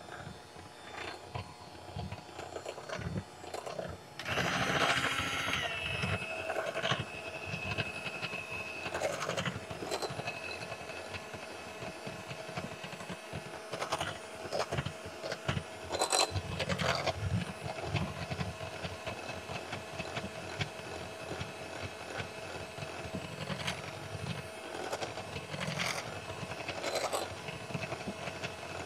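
Electric hand mixer running at medium speed, its motor giving a steady whine as the beaters whip cake batter in a glass bowl, with irregular clicks and scrapes of the beaters against the glass. There is a louder stretch about four seconds in.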